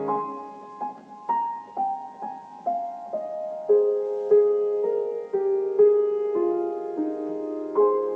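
Solo piano playing a slow, gentle melody, with single notes struck about every half second over lower notes that keep ringing.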